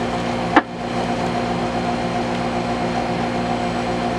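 Steady hiss and hum with a few low, even tones from a 2-metre FM transceiver's speaker while the channel is open and no one is talking, broken by a short click about half a second in.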